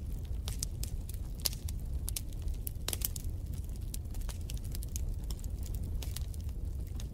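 Fire crackling in a fireplace: irregular sharp pops and snaps over a steady low rumble.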